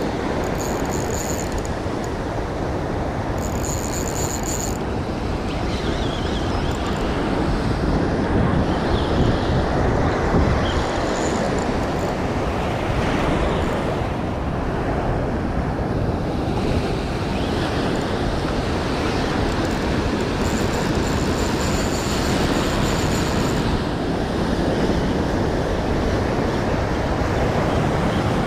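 Surf breaking and washing around the legs in the shallows, a steady rushing with wind buffeting the microphone.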